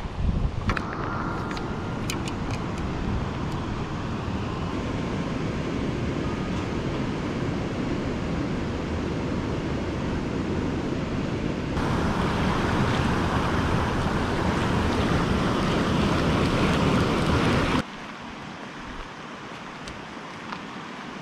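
Steady rush of wind on the microphone mixed with flowing river water, with a few light clicks near the start. The rush turns brighter and louder about twelve seconds in, then drops abruptly to a softer hiss near the end.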